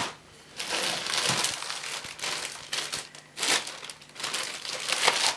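Clear polythene packaging bag crinkling and rustling as a wrapped vacuum cleaner accessory is handled, in irregular bursts that start about half a second in.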